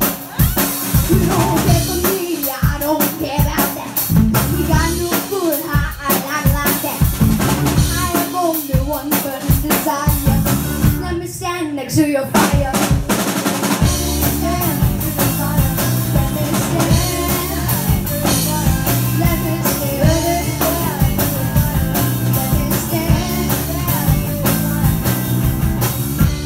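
Live rock band playing, with a drum kit driving the beat under electric guitar and bass guitar.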